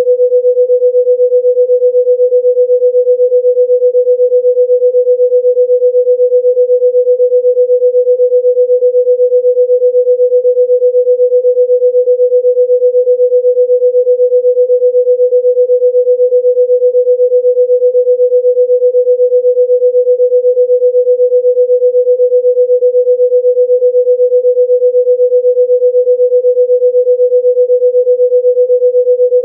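A steady electronic pure tone, a single held pitch near 500 Hz with no overtones, played as a healing-frequency sound. Its loudness wavers slightly in a fast, even pulse.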